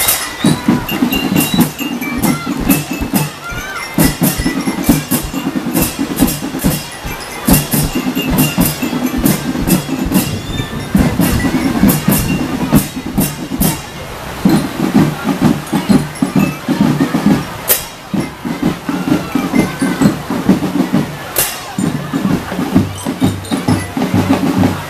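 A children's marching drum band playing: drums struck in a busy rhythm, with bell lyres and pianicas carrying the tune.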